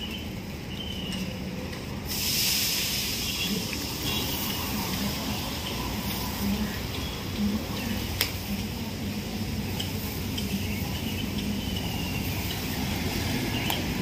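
Steady roadside traffic noise with a constant low rumble, and a hiss that comes up sharply about two seconds in and stays. Short high squeaks sound now and then, and there is one sharp click about eight seconds in.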